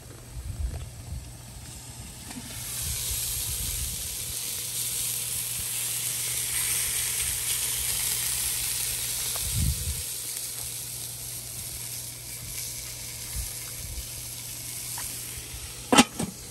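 Seasoned burger patties sizzling on the grate of a small Weber charcoal kettle grill, the sizzle building about two seconds in. Near the end comes a sharp metal clank as the grill's lid is handled.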